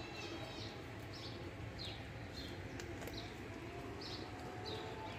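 A small bird chirping over and over, short high falling chirps about twice a second, over a low steady outdoor rumble.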